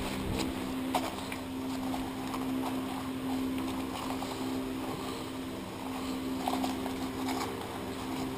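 A steady machine hum, with faint rustling and light scuffs of a paper rag being rubbed over a brake disc.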